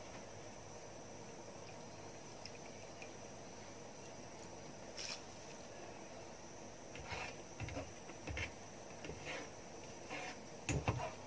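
Pot of basmati rice and water heating on a gas stove: a faint steady hiss, with a few short soft pops and knocks in the second half, the loudest near the end.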